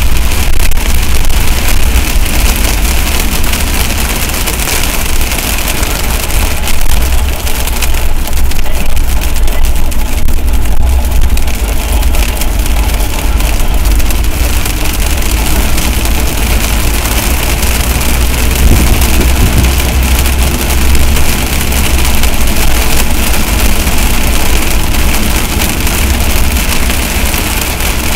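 Heavy rain beating down steadily on a vehicle, with a constant low rumble underneath.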